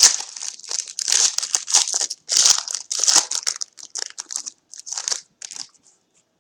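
Foil wrapper of a trading card pack crinkling as it is torn open, in quick irregular crackles that thin out and stop about six seconds in.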